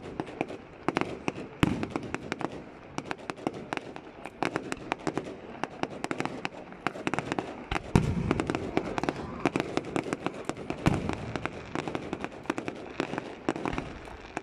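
Aerial fireworks display: shells bursting overhead in a dense, rapid crackle of sharp pops, with heavier booms about two seconds in, about eight seconds in and about eleven seconds in.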